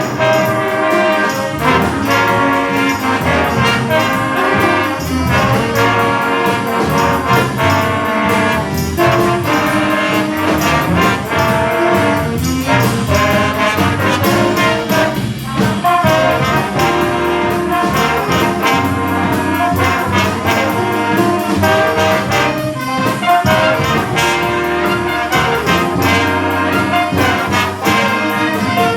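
School jazz band playing a funk-style jazz chart live, the brass and horn section in loud riffs and sharp rhythmic hits.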